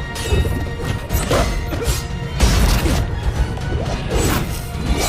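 Sword-fight sound effects, a run of sudden clashes, hits and swishes, over a loud, dramatic orchestral film score.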